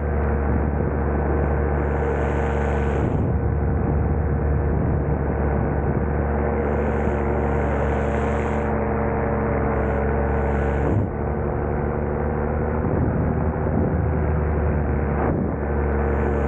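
Ultralight aircraft's engine and propeller running at a steady pitch in flight, with a brief dip in level about two-thirds of the way through.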